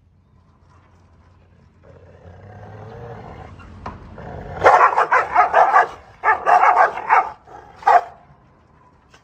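Dogs squaring off with a low growl that builds from about two seconds in, then breaking into loud, rapid barking: two quick volleys and one last bark near the end.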